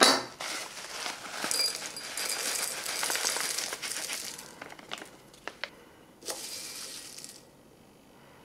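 Freeze-dried peas poured from a plastic pouch into a ceramic bowl: a dense rattle of hard, dry peas landing in the bowl, with the pouch crinkling. It thins out after about four seconds into a few separate clicks, with a last short shake of the pouch near the end.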